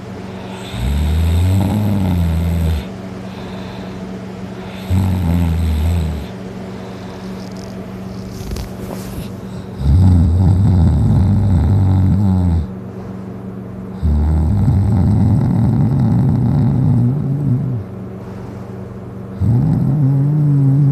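Heavy snoring from a person passed out drunk on their back: five loud snores, each lasting one to four seconds, some rising and falling in pitch and some fluttering, with quieter breathing between them. The last snore runs on past the end.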